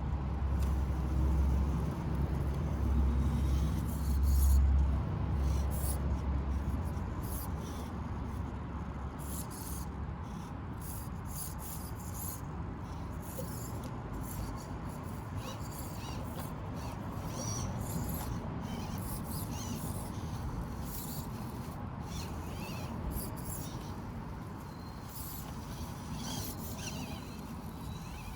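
Outdoor ambience with birds calling in short chirps throughout, over a steady background hiss; a low rumble runs through the first few seconds and then fades.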